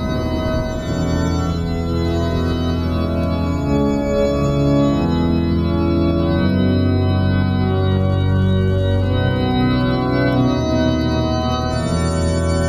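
Recorded organ music: slow held chords over a steady bass line, changing every second or two.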